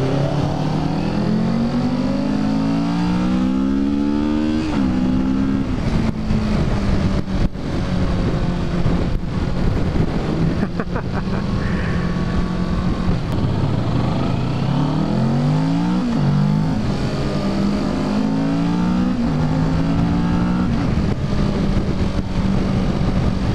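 2017 Kawasaki Ninja 650's parallel-twin engine on its stock exhaust, pulling hard with the engine note climbing, then dropping sharply at a gear change about five seconds in. It holds a steady note while cruising, then climbs and drops a few more times between about fourteen and twenty seconds, over steady wind rush on the microphone.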